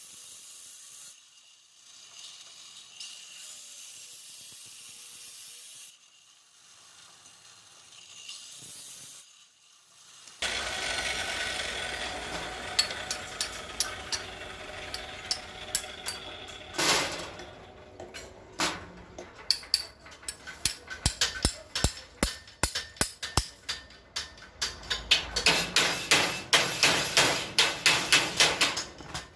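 Hammer blows on metal. They follow about ten seconds of faint steady hiss, come scattered at first, then fall rapidly, several a second, near the end.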